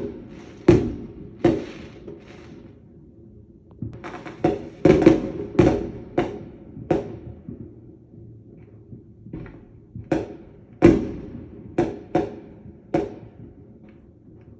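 Fireworks going off: about a dozen sharp bangs in irregular clusters, each followed by a short rumbling tail.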